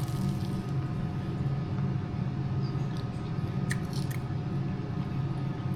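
A person chewing a bite of deep-fried Oreo, with a few small clicks about three to four seconds in. A steady low hum runs underneath.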